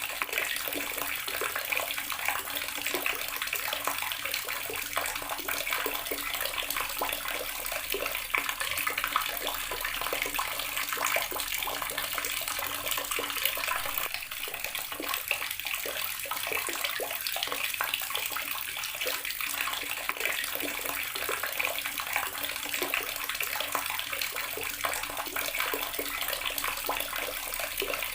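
Outdoor water tap running steadily, its stream splashing and pattering without a break.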